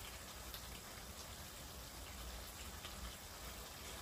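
Pork rib broth simmering in a pan on a portable gas stove: a faint steady hiss with light scattered crackles of bubbling.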